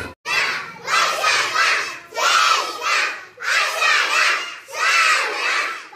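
A group of young children chanting together in unison, in loud rhythmic phrases about a second long with short breaks between them, as when a class recites a lesson aloud.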